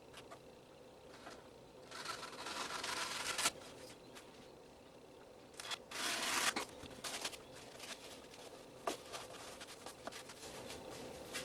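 Foam insert being torn and handled: two short rasping tears, about two and six seconds in, with light clicks and knocks between.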